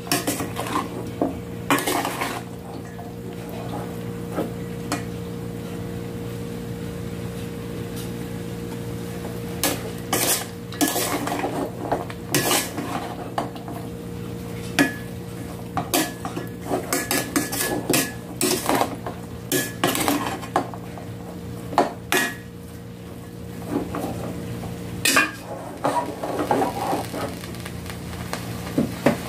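A cooking utensil stirring and tossing bamboo shoot strips and meat in a stainless steel pot, with irregular clinks and scrapes of metal against the pot coming in clusters. A steady low hum runs underneath.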